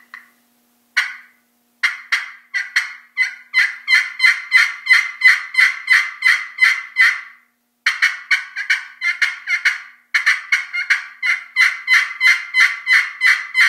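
Ceramic-surfaced turkey pot call with a yellowheart and maple pot and black laminate, played with a wooden-handled striker in long runs of yelps, about three notes a second, broken by two short pauses. Each yelp has a high front end and a raspy back end.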